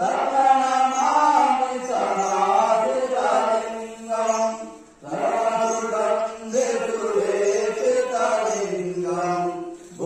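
Hindu aarti hymn chanted in long sung phrases of about five seconds each, with a short break between them.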